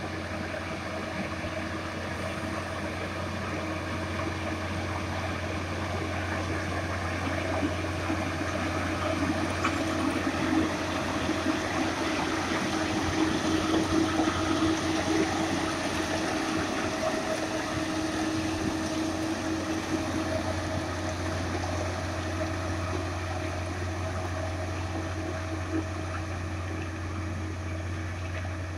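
Plasser & Theurer PBR-400U-RS ballast regulator's diesel engine running steadily with a constant low hum, over the rushing scrape of ballast stones pushed along by its plough. It grows louder in the middle as the machine comes closest, then eases off.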